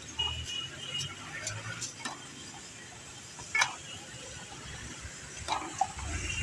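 A long steel ladle stirring chunks of ice in juice in a large steel pot: scattered clinks and knocks of metal against ice and the pot's side, with the liquid swirling. One knock about halfway through is sharper than the rest.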